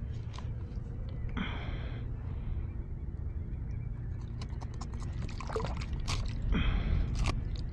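Wind rumbling on the microphone, with light water sounds as a redfish is handled over the side of a kayak. Two short hissing rushes about five seconds apart, and a run of small clicks in the second half.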